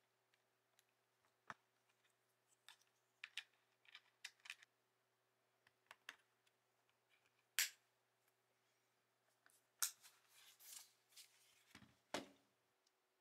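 Faint, scattered small plastic clicks and taps from hand work on a Royal Kludge RK98 mechanical keyboard case: a screwdriver on a case screw, then parts being handled and pressed into place. There are two sharper clicks past the middle, a short run of rattles after them, and a duller knock near the end.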